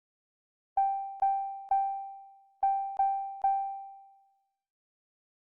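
A single electric-piano-like keyboard note played six times at the same pitch, in two quick groups of three, each note ringing briefly and fading.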